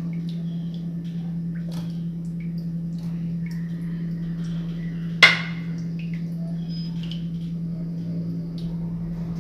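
Chicken pie filling being spooned onto batter in a baking pan: faint soft squishes and small utensil clicks, with one sharp clink of the utensil against the pan or bowl about five seconds in, over a steady low hum.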